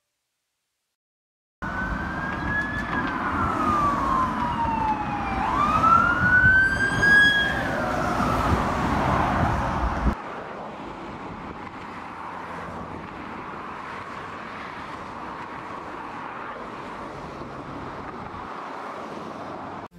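Emergency vehicle siren wailing in slow falling and rising sweeps over city traffic noise, starting after a short silence; about ten seconds in it cuts to a quieter, steady hum of distant traffic.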